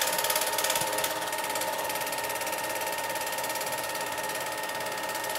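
Film projector running: a rapid, even mechanical clatter over a steady hum.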